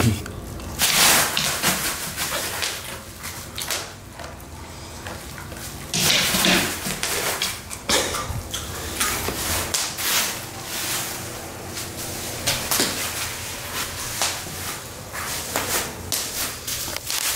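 Plastic bubble wrap crinkling and rustling in irregular flurries as a husky's paws step over sheets of it on a wooden floor and loose sheets are lifted and dropped over the dog.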